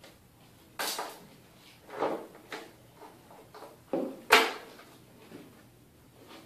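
Knocks and clatters of clamps being fitted onto a glued plastic armor piece: about five separate hits, the loudest a sharp snap a little past four seconds in.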